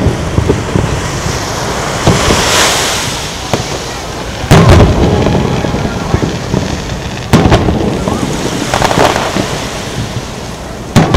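Aerial firework shells bursting: three loud booms about three seconds apart, with smaller pops and stretches of crackling, hissing sparkle between them.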